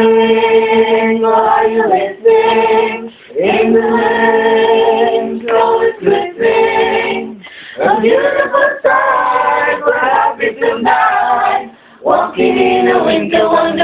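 Mixed-voice choir singing held chords in long phrases, with short breaks between phrases.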